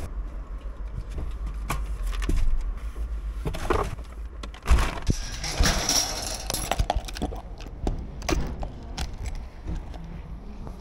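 Metal shopping trolley rattling and clanking as it is pushed into a row of nested trolleys, with scattered clicks and one sharp clank about halfway through.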